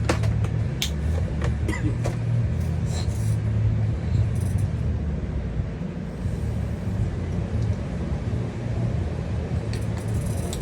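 A steady low rumble of background machinery, with a few light clicks in the first seconds and near the end from small metal regulator parts and tools being handled.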